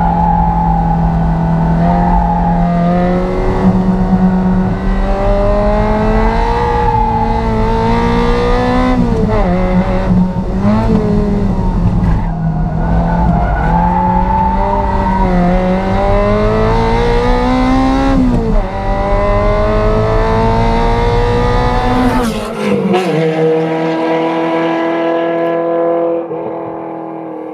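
Ferrari 348 Challenge's V8 engine being driven hard on track, its pitch climbing and falling again and again through revs and gear changes. About 22 seconds in, the deep rumble drops away and the sound thins and fades near the end.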